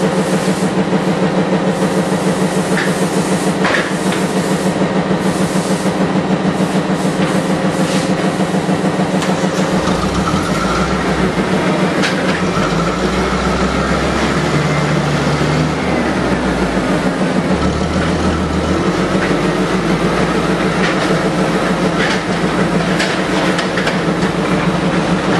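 Heavy machinery running steadily with a rapid low pulsing, a few scattered clicks, and a deeper drone coming in about ten seconds in.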